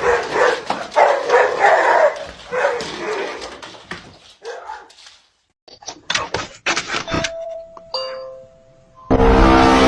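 Dog whining and barking for the first few seconds, then a two-note doorbell chime, a higher tone falling to a lower one. A loud, dense sound cuts in near the end.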